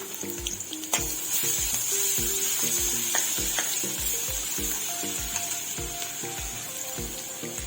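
Food sizzling in hot oil in a pan, a steady frying hiss that grows louder after a sharp click about a second in. Background music with a steady beat plays underneath.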